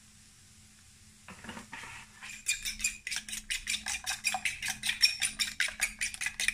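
Eggs being beaten with a metal fork in a glass bowl: quick, rapid clinks of the fork against the glass, starting about two seconds in.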